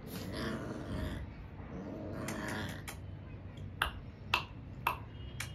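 French Mastiff (Dogue de Bordeaux) puppies grunting and growling low as they play-fight. In the second half come four sharp clicks, evenly spaced about half a second apart.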